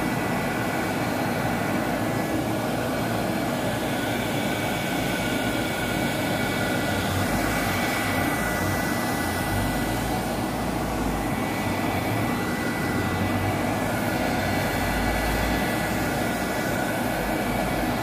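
Handheld craft heat gun blowing steadily, its motor giving a faint high whine over the rush of air, as it dries wet paint.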